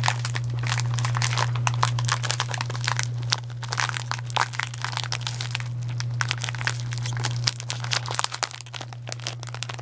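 Cardboard box of Wasa rosemary crackers being opened and its silvery inner wrapper pulled open by hand: quick, irregular crinkling and crackling, over a steady low hum.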